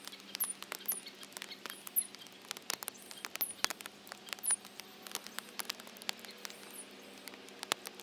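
Backyard birds feeding: a dense run of sharp, irregular clicks and taps, with several short, very high chirps that fall in pitch.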